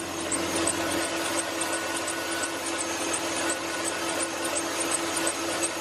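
2005 GMC Sierra's engine running, with its serpentine belt and idler pulley squeaking: quick high chirps a few times a second over a steady hum. The noise comes from a worn belt and a worn idler pulley, with the belt the main offender.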